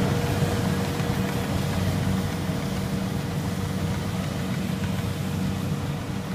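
Kubota rice combine harvester running steadily while it cuts through the crop, a low engine sound with a steady whine above it. It grows a little quieter as the machine moves away.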